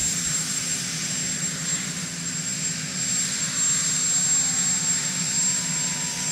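Marine One helicopter's turbine engines running on the ground: a steady high whine over a broad rushing hiss, with a low hum beneath.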